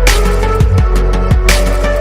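Electronic drum-and-bass style music: a heavy bass line and a steady beat with kick drums and a crash about every second and a half.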